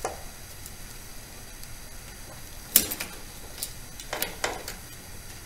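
Sharp metal clicks and clinks from a hand tool tightening the arm's fastener on a Bridgeport 8F milling-machine power feed. There is one loud click a little under three seconds in, and a few lighter ones over the next two seconds.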